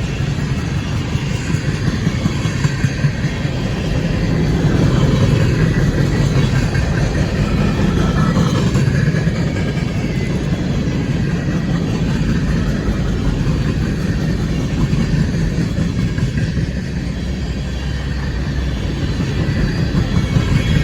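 Freight train of trash cars rolling past: a steady rumble of steel wheels on rail with scattered clanks and clatter.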